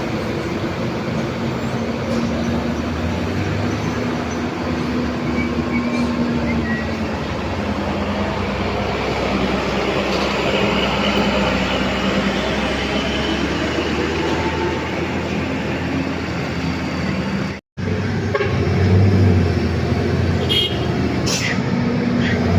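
Heavy diesel trucks and buses labouring up a steep grade: a steady low drone of engine and road noise. The sound cuts out for a moment about three-quarters of the way through and comes back a little louder.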